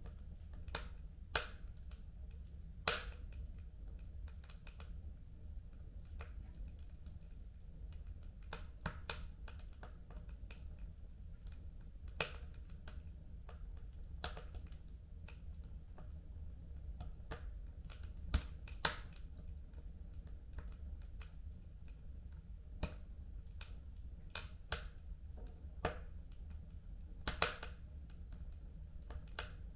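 Fire crackling in a home fireplace: irregular sharp pops and snaps, a few louder than the rest, over a steady low rumble.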